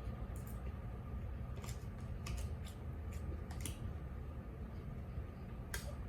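Eating at the table: about six scattered short clicks and taps, such as spoon and fork on a plate, over a steady low hum.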